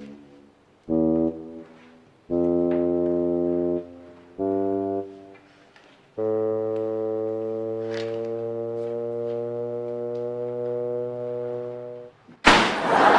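Background music: three short held notes, then one long held note lasting about six seconds. Near the end the music stops and a sudden loud, noisy burst cuts in.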